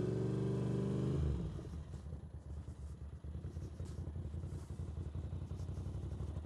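Ducati Monster 750's air-cooled V-twin engine revving up and holding its revs, then falling off a little over a second in to a low, uneven, pulsing run.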